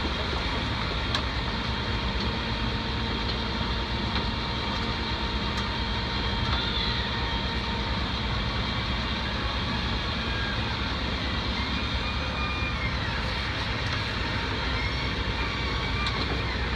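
Truck engine running steadily, a continuous even drone.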